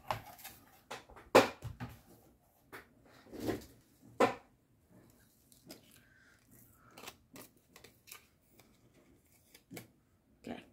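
Clear acrylic cutting plates handled and set down with a few sharp clacks, then thin cardstock rustling and crinkling as die-cut pieces are pulled out of a metal cutting die, with small taps.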